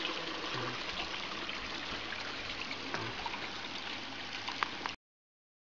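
Water running and trickling steadily through an IBC-tote aquaponics system, with a few faint splashes. It cuts off abruptly about five seconds in.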